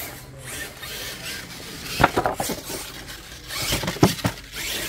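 RC monster truck scrabbling over loose dirt, with a cluster of knocks about two seconds in and a sharp hit about four seconds in as it strikes and bounces off the wooden ramps.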